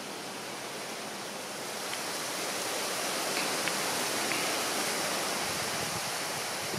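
Steady rushing of flowing creek water, an even hiss that grows a little louder about two seconds in.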